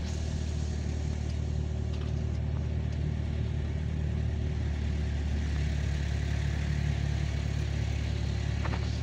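Car engine and tyre noise heard from inside the cabin while driving: a steady low hum.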